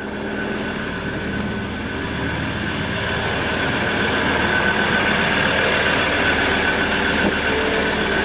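Ford Ranger's engine idling: a steady hum and hiss with a thin high whine, growing slowly louder over the seconds.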